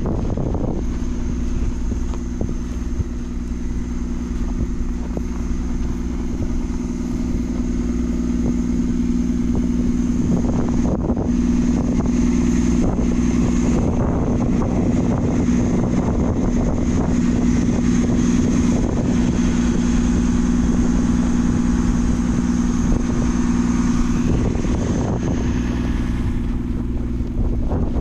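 Articulated city bus's diesel engine idling steadily with a constant low hum, the bus standing still in deep snow.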